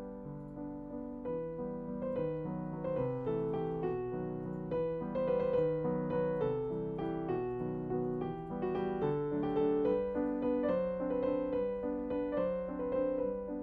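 Background piano music: a gentle melody over chords, the notes struck and fading one after another.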